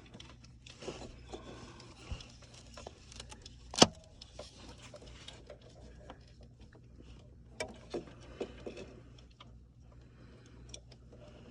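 Scattered small metallic clicks and rattles from hands working with wires, terminals and small hardware, with one sharp click about 4 seconds in and a cluster of clicks near 8 seconds, over a faint steady low hum.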